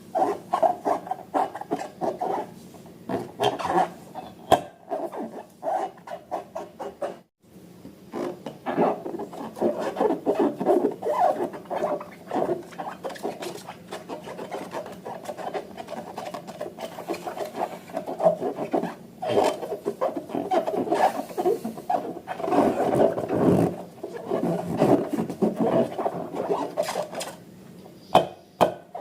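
Close-up handling of rubber balloons and slime: a dense run of short rubbing and squishing strokes, with a brief break about seven seconds in.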